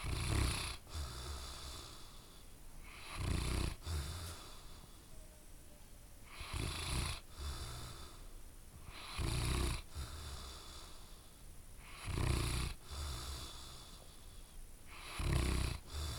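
A sleeping dog snoring loudly: six rasping snores about every three seconds, each followed by a brief, softer second breath.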